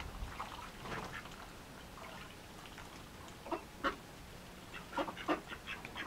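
Mallard drake giving short calls: a couple scattered early on, two about three and a half seconds in, then a quick run of short calls near the end.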